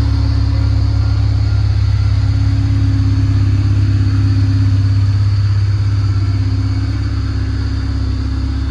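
Turbocharged Honda K-series inline-four in a 1990 Acura NSX idling steadily through its exhaust, a deep, even hum.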